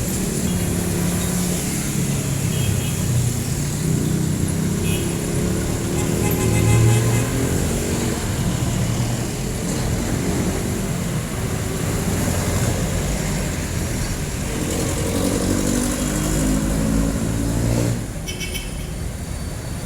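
Street traffic of jeepney and other vehicle engines running and passing, their pitch shifting as they pull away and slow. Near the end the sound drops suddenly.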